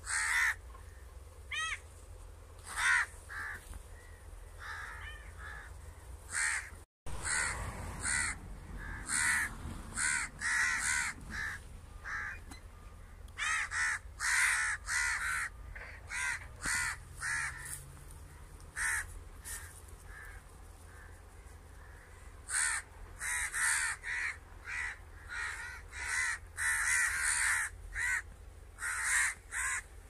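Crows cawing over and over: short, harsh calls, some single and some in quick runs. The sound cuts out completely for an instant about seven seconds in.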